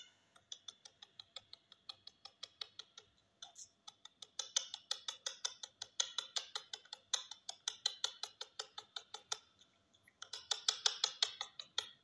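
Parrot chick being fed beak to beak by an adult parakeet: rapid, rhythmic clicking pulses, about six a second, in three runs with short pauses between them.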